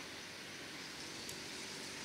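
Steady outdoor ambient noise: an even hiss with a faint low hum underneath.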